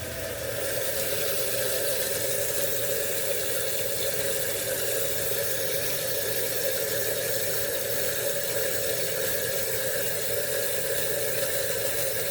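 Toilet tank refilling through its fill valve: a steady hiss and rush of water with a constant tone, as the tank fills after the water supply is turned back on.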